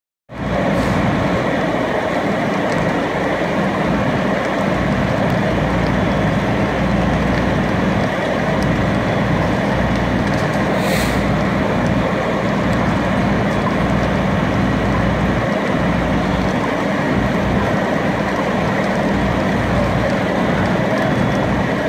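Diesel engines of fire apparatus running steadily at the fire scene, a constant rumble with a steady low hum. A short hiss sounds about eleven seconds in.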